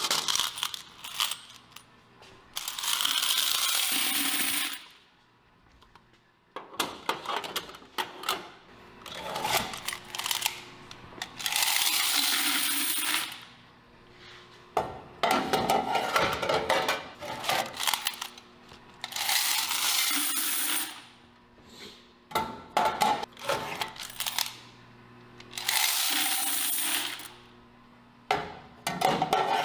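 Quarters being emptied out of laundromat washer and dryer coin boxes: four clattering pours of coins, each about two seconds long, with scattered metallic clicks and clinks between them.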